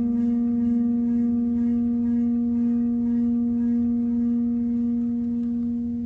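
Large round metal plate ringing with one steady, sustained low tone and several higher overtones, its vibration forming a star-shaped cymatics pattern on the surface. The tone eases off slightly near the end.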